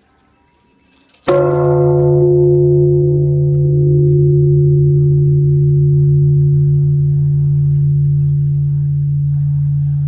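Large bronze Japanese temple bell (bonshō) struck once with its hanging wooden log striker about a second in. A sharp strike opens a long, deep hum that fades only slowly, while the higher overtones die away within a few seconds.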